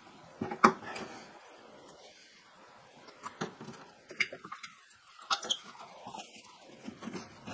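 A spare wheel and tyre being handled into a carpeted car boot: scattered light knocks and scuffs as the tyre and steel wheel bump and rub against the boot floor and panels, with quiet gaps between.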